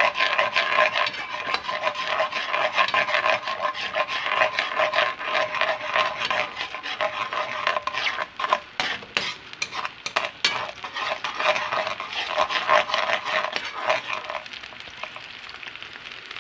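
Metal spatula stirring and scraping around a nonstick wok of simmering, sizzling marinade sauce, with scattered clicks of the utensil against the pan. The stirring dies down near the end.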